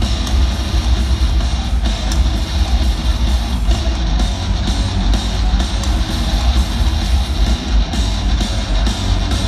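Live band music in a large arena: electric guitar and drums through the PA, with heavy bass, picked up from far back in the stands.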